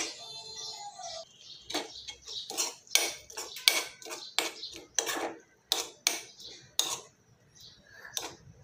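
Spoon stirring thick mashed baby food in a cooking pot, knocking and scraping against the pot about twice a second, the strokes thinning out near the end.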